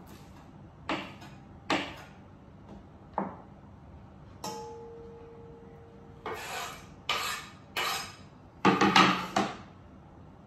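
Kitchen work with a wooden cutting board and knife: a few sharp knocks, one followed by a short steady ring. Then a knife scrapes chopped garlic chives across the board in several strokes, the loudest near the end.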